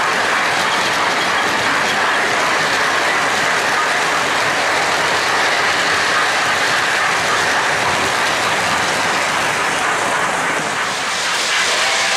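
Lionel O-gauge freight cars rolling past close by on three-rail track, their wheels clattering over the rail joints in a steady rolling noise.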